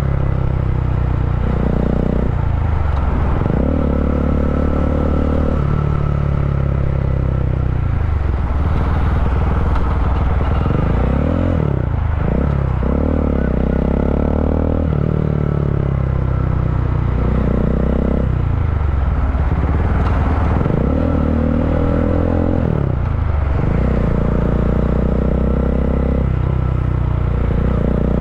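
Bajaj Dominar 400's single-cylinder engine through a resonator in place of the catalytic converter and an Akrapovic slip-on muffler, heard while riding. The exhaust note rises and falls every two to three seconds as the bike slows in traffic.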